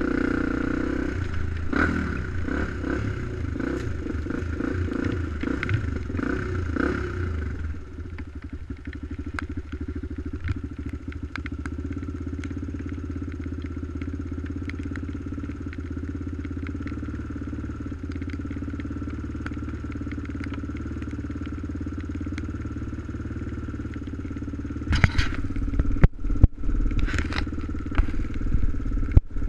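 Sport quad ATV engine running as the machine rides over rough ground, then settling into a steady idle about eight seconds in. Near the end come several loud knocks and rubs of something handling or bumping the camera.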